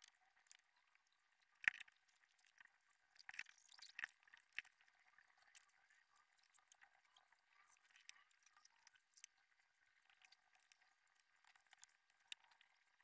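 Faint scratching and small ticks of a pencil shading on paper, with a sharper tick just under two seconds in and a cluster of louder ticks between about three and four and a half seconds in.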